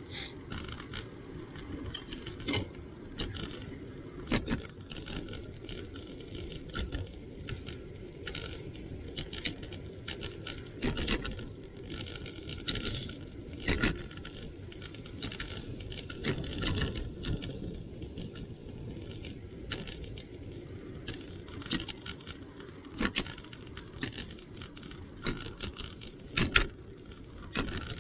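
A bicycle rolling over cracked, patched asphalt: a steady low rumble of tyres and wind, broken by irregular sharp clicks and rattles as it goes over the bumps, the loudest near the end.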